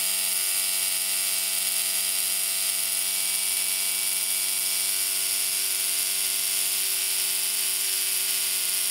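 Homemade 3D-printed axial-flux brushless motor (6 stator coils, 8 neodymium magnets) running at a steady speed on its electronic speed controller and 2S lipo: an even whine with a high hiss, holding one pitch throughout.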